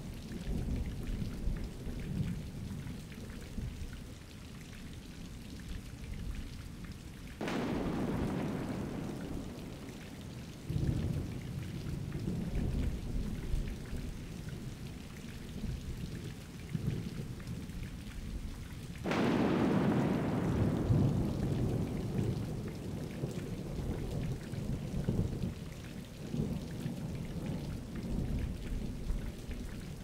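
Thunderstorm: steady rain with continuous low rolling thunder and two sharp thunderclaps, one about seven seconds in and a louder one about nineteen seconds in. Each clap cracks suddenly and then rumbles away over several seconds.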